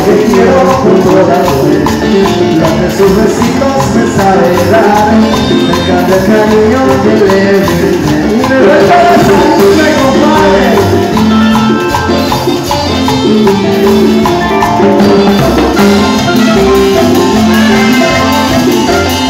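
Live Latin dance band playing, with timbales and cymbal driving the rhythm under keyboard and other pitched parts.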